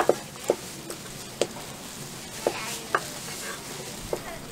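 Large kitchen knife chopping cooked pork on a cutting board: about eight separate knocks at an uneven pace, two close together at the start.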